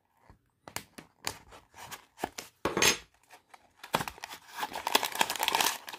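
A small blade slitting a silvery foil-like wrapper, with scattered crackles and clicks, then dense crinkling from about four seconds in as the wrapper is torn and peeled open by hand.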